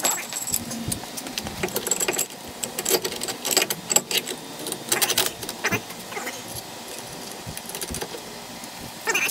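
Metal tools and parts clinking and clanking as they are handled during wheel bearing removal: irregular light knocks, some with a short metallic ring.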